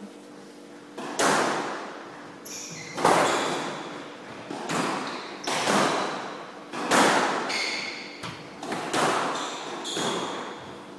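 Squash ball struck back and forth in a rally: about eight sharp racket and front-wall hits, one every second or two, each ringing out in the court's echo, with a few short high sneaker squeaks on the wooden floor between shots.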